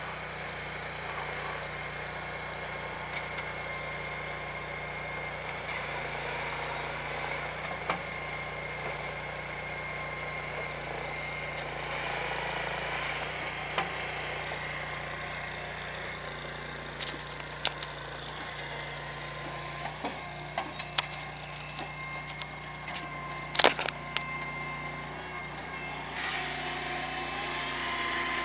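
Palax KS 35 firewood processor running steadily on its small engine while it saws and splits a log, with scattered knocks and clatter of wood and one sharp, loud knock about 24 seconds in.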